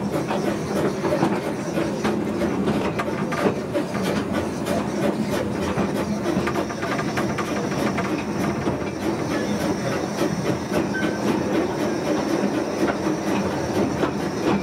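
Narrow-gauge railway carriage running behind a steam locomotive: a steady rumble with the wheels clicking and clattering over the rail joints. From about six seconds in a faint high hiss joins.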